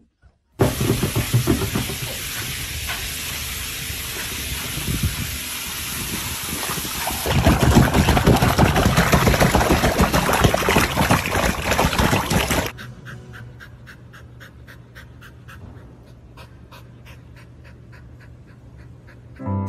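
Loud rush of splashing and spraying water around a small dog in a pool, growing louder about seven seconds in and cutting off after about twelve seconds. Then a quieter stretch of a dog panting in quick, even breaths.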